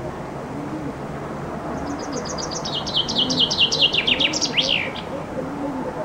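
Common chaffinch singing one full song about two seconds in. A quick run of notes falls in pitch, speeds into a lower trill and ends with a sweeping flourish.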